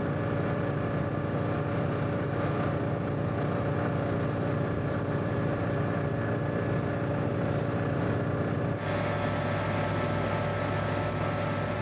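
Steady drone of an engine running at a fire scene, most likely the fire engine's motor driving its pump to supply the hose, over a faint hiss. The drone shifts slightly about nine seconds in.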